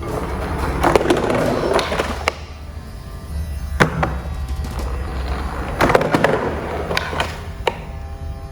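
Toy vehicles rolling down a slope: short bursts of rolling rattle with sharp clacks and knocks scattered through, over a steady low hum.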